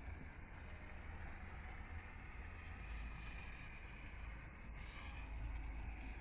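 Onboard running noise of a São Paulo Metro Line 4 Yellow train in the tunnel: a steady low rumble with wheel and rail noise.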